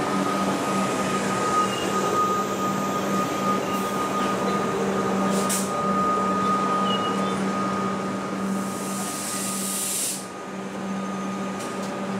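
Comeng electric suburban train rolling slowly alongside a platform, its electrical equipment giving a steady low hum with a thin higher whine over it. A burst of air hiss comes about eight and a half seconds in, and the sound drops abruptly a couple of seconds before the end.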